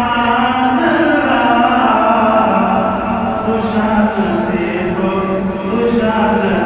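A man singing an Urdu naat unaccompanied, holding long notes and sliding slowly between pitches.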